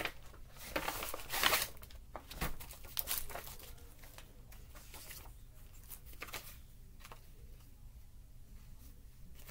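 Brown paper package being torn open and rustled, with several sharp rips and crinkles in the first three seconds, then only faint paper handling.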